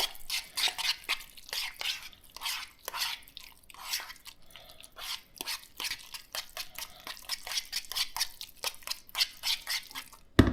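A wet mixture of chopped ladyfish, shrimp, clams and egg being stirred in a bowl: a steady run of irregular wet smacks and clicks. It ends with one sharp knock.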